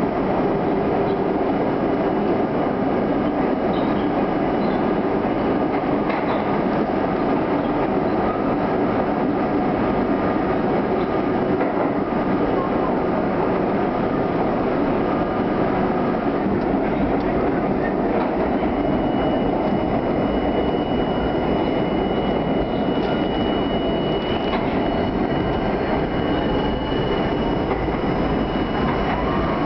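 R32 subway train running at speed through a tunnel, with a steady rumble of wheels on rail. A high steady whine joins in past the halfway point.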